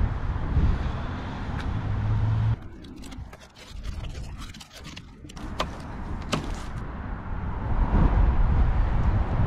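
Hands pulling a paper medical mask off a truck's plastic snorkel head, giving a few light clicks and rubbing. A low rumble stops suddenly about two and a half seconds in and comes back after about three seconds.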